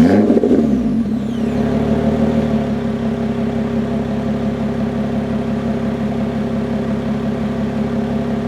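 2017 Lotus Evora 400's supercharged 3.5-litre V6 just after starting: the revs flare and fall over the first two or three seconds, then it settles into a steady idle. This is a normal start, so the exhaust is in its default quiet mode with the bypass valves closed.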